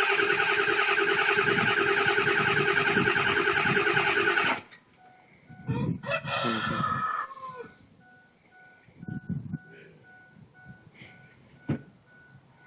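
Ford 7.3 Power Stroke V8 diesel cranking hard on the starter with a fast, even pulse, then stopping abruptly about four and a half seconds in without having run cleanly: a cold hard start that the owner puts down to bad glow plugs and weak batteries. A rooster crows once just afterwards, and a faint beep then repeats evenly.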